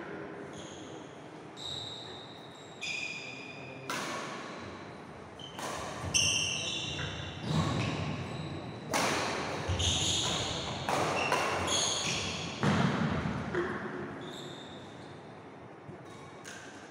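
Badminton rally: rackets striking the shuttlecock in sharp cracks, mixed with sneakers squeaking and feet thudding on a wooden court floor. The hits ring on in the hall, and they come thickest in the middle of the rally.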